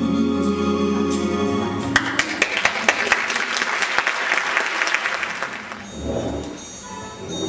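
A band's music ends about two seconds in, and the audience applauds for about four seconds before the clapping fades. A new piece of music starts faintly near the end.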